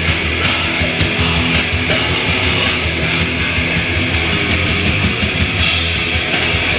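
Loud heavy rock band playing live: electric guitars and bass over a drum kit beating about twice a second. Near the end, a brighter cymbal wash comes in.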